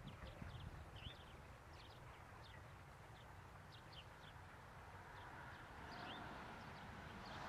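Faint, scattered bird chirps, short quick calls over a low rumble. Near the end a soft rushing noise begins to swell, likely the distant steam train.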